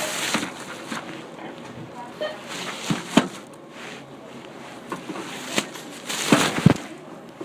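Shop background noise with rustling and several sharp knocks and clicks; the loudest moment, about six seconds in, is a burst of rustling ending in two knocks.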